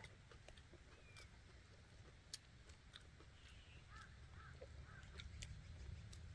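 Near silence with the quiet sounds of eating: faint chewing and light clicks of chopsticks, over a low steady rumble. Three short faint bird calls come about four to five seconds in.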